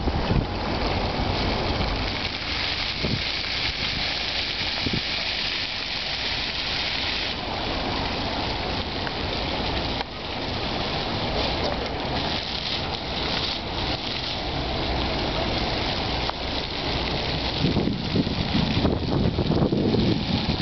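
Fountain water splashing steadily: a stream falls into a metal trough and water runs along a metal channel. Near the end there is a low rumble of wind on the microphone.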